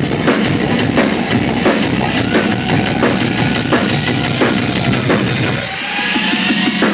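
Live rock drum kit solo: fast, even strokes on bass drum and snare. The deep bass drum thins out about six seconds in.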